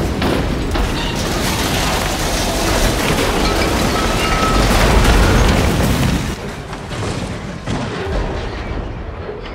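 Film sound effects of a train crashing and derailing: a long, loud crash of grinding and tumbling metal with many impacts and a heavy low boom, loudest about five seconds in and then dying away.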